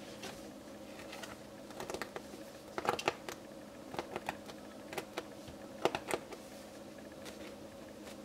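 Slow-rising foam donut squishy being squeezed by hand, giving a run of light, irregular clicks and crackles from fingernails and squashed foam, bunched in the middle few seconds.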